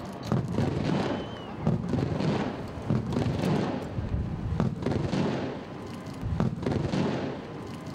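Fireworks going off: a run of irregular bangs and crackles.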